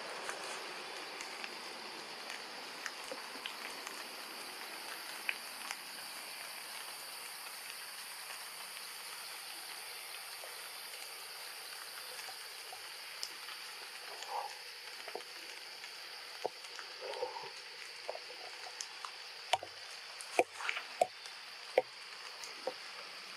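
Forest ambience: a steady high drone of insects, with scattered light clicks throughout. Two short faint calls come around the middle, and a cluster of sharper clicks comes near the end.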